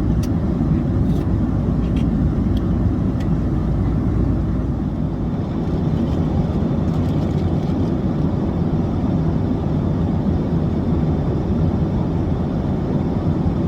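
Airliner cabin noise: a steady, loud rumble of jet engines and airflow heard from inside the cabin, with a few faint clicks in the first few seconds.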